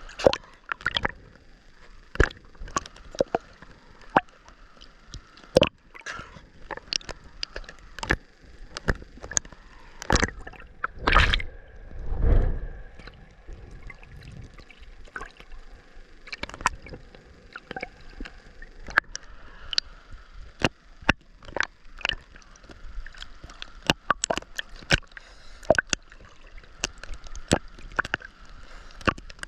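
Ocean water sloshing and gurgling around the swimmer, with many irregular sharp clicks and knocks throughout and a louder low rush of water about a third of the way in.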